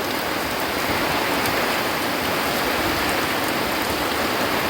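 Heavy rain pouring down steadily, a dense, even hiss of falling water with no let-up.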